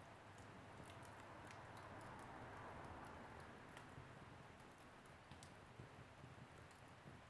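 Wood fire burning in a fireplace: faint, irregular crackles and small pops over a low, steady rushing hiss.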